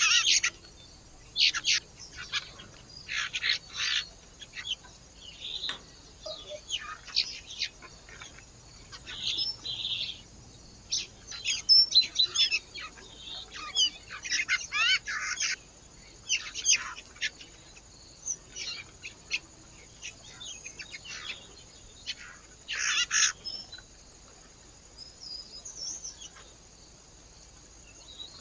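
Small birds chirping and calling: many short, irregular chirps and call notes, some gliding in pitch, with brief pauses between.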